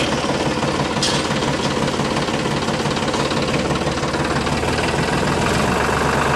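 Tractor engine running steadily at idle, with a fast, even beat.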